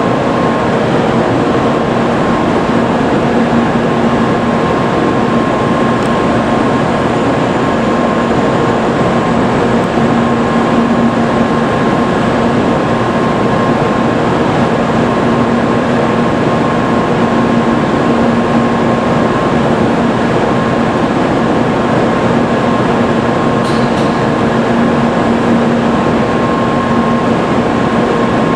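Kyushu Shinkansen 800-series train standing at the platform with its onboard equipment running: a steady, even whir and hum with a few fixed tones in it.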